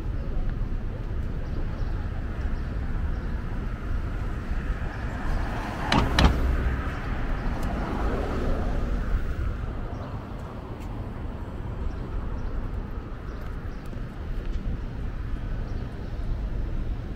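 City street traffic: a steady low rumble of passing vehicles, with one sharp bang about six seconds in followed by a brief swell of noise.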